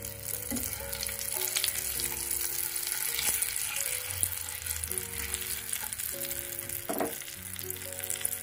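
Hot oil in a wok sizzling and crackling around freshly added turmeric powder, nigella seeds and green chillies, stirred with a spatula, with a sharp click about seven seconds in.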